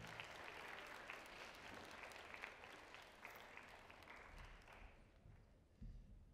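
Faint audience applause, a patter of many hand claps, that dies away about five seconds in; a soft low thump follows near the end.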